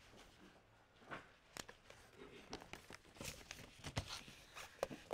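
Faint handling of Bible pages and a paper sheet at a pulpit: soft rustling with a string of light clicks and knocks, busier in the second half.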